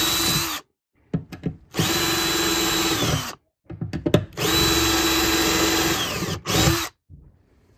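Ryobi 18 V cordless drill with a 4 mm bit drilling out the old rivets of a boat rod holder. It runs in three bursts of a second or two each, with short blips between them, and each burst winds down in pitch as the trigger is released.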